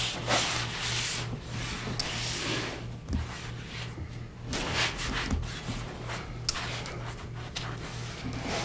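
Cloth pad rubbing shellac onto the end grain of wooden feet in a series of uneven wiping strokes, a soft scuffing friction sound. A steady low hum sits underneath.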